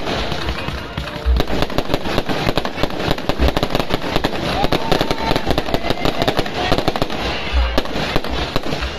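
Fireworks going off in a dense, continuous stream of bangs and crackles, with heavier booms now and then.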